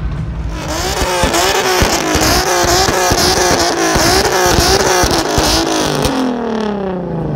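Car engine revved hard again and again, its pitch climbing and dropping about twice a second, then the revs falling away steadily near the end.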